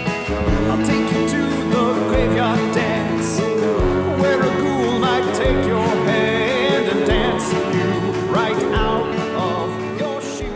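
A song with singing over instruments and a beat, starting to fade out near the end.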